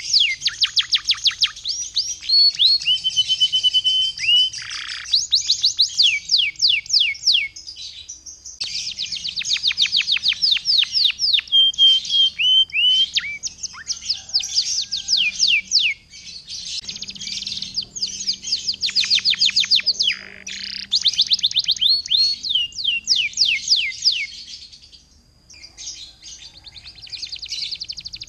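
Domestic canary singing hard, a long song of rapid trills built from quickly repeated falling whistles. The phrases are broken by short pauses, with a couple of held notes and a fast, dense rolling trill near the end.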